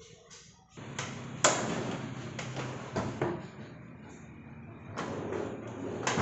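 A series of sharp knocks and clacks from a kitchen cabinet as its metal soft-close drawer slides are handled and fitted, the loudest about one and a half seconds in.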